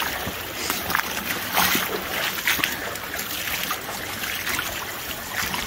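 Creek water rushing steadily through a sluice box, with light splashing.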